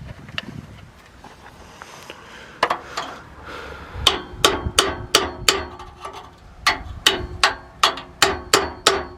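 Hammer blows on a chisel against the coach bus's rusted exhaust pipe, each strike ringing metallically: a couple of single hits, then a steady run of about two to three blows a second with a short pause in the middle, to break the old exhaust tip free.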